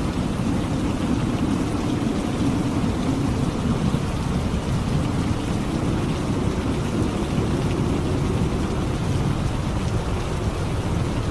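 Steady rain with a low rumble of thunder underneath, a little stronger in the first half.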